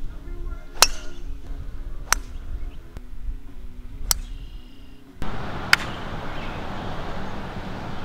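Golf drivers striking balls off the tee: four sharp metallic cracks spaced one to two seconds apart, the first the loudest. Soft background music plays under the first three and stops about five seconds in, leaving an even outdoor noise under the last.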